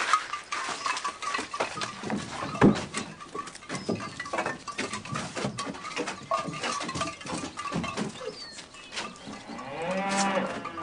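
A barn being searched: repeated knocking and clattering, the loudest knock just under three seconds in, with a cow mooing once, drawn out, near the end.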